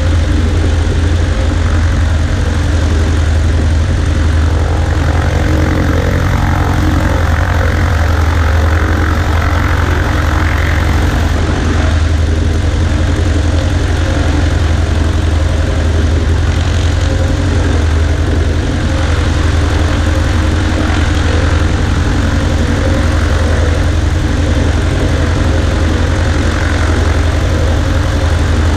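Cessna 140A light aircraft's Continental four-cylinder engine and propeller running steadily, a loud, even low drone with no change in pitch.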